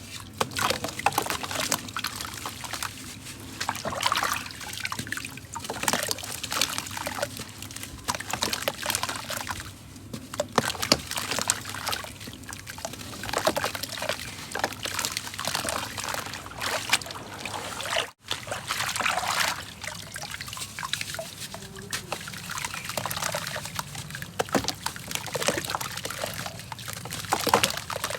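Clumps of wet golden sand crumbling and falling into water: a dense run of small crackles, trickles and splashes, with a brief break about two-thirds of the way through.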